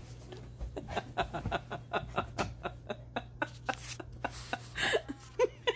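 A woman's stifled laughter: quick breathy chuckles, about four or five a second, with a few short voiced notes near the end.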